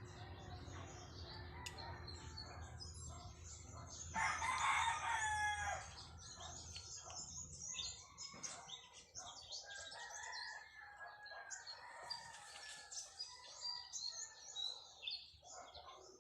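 A rooster crows once, about four seconds in, with small birds chirping throughout.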